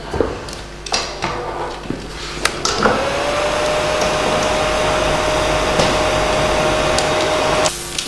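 Handheld hairdryer handled with a few knocks, then switched on about three seconds in: its motor whine rises quickly and holds steady over a rush of air, stopping just before the end.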